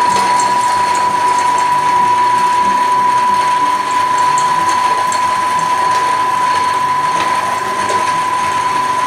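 Commercial coffee grinder, modified for grain, switching on suddenly and running with a steady whine as it grinds oven-roasted corn kernels.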